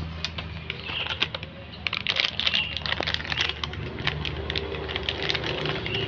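A cat crunching dry kibble: a rapid, irregular run of small crisp clicks, over a low steady hum.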